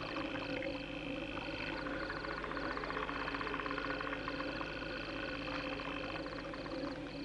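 Eerie film soundtrack: short chirping trills, like frogs or insects, repeating again and again over a steady droning hum.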